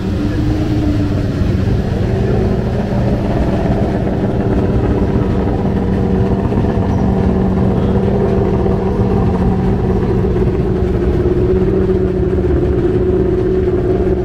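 Judd V8 racing engine in a Mercedes 190 race car idling steadily at close range.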